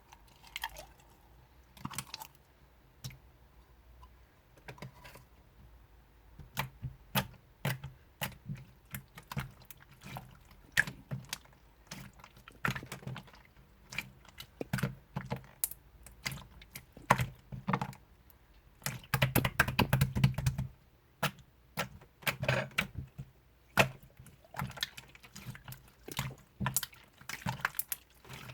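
Clear slime being squished and stretched by hand, making irregular sticky clicks and little pops. It is sparse at first, gets busier about six seconds in, and is densest around twenty seconds in.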